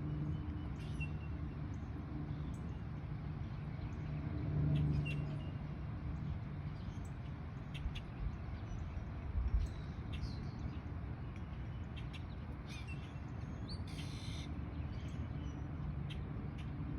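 Outdoor ambience: scattered short bird chirps over a steady low hum, with a swell in the hum about four to five seconds in and a brief rustle about fourteen seconds in.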